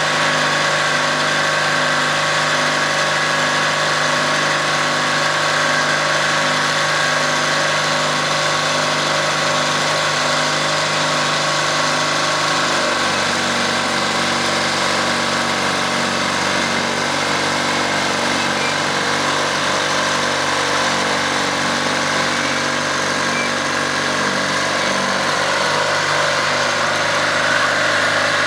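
Bulldozer's diesel engine running steadily while it works a boom to lift lumber, its note dropping to a lower, slower pitch about halfway through.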